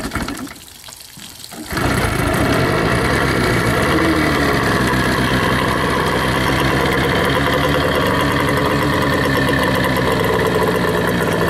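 2000 Johnson 9.9 hp two-stroke outboard motor starting for the first time of the season: a brief burst that drops away, then about two seconds in it catches and settles into a steady run.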